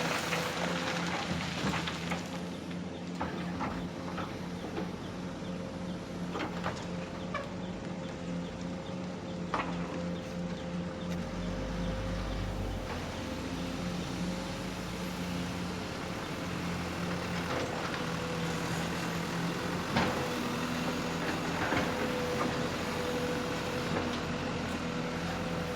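Excavator working: a steady motor whine that drops out and comes back, with a few sharp knocks.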